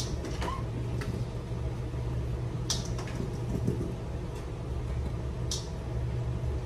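Whole strawberries dropped by hand into a stainless steel bowl on a kitchen scale, giving a few soft taps, over a steady low hum.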